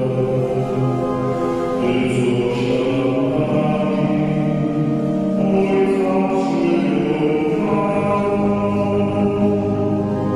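Slow, chant-like church music: long held notes that change every second or two.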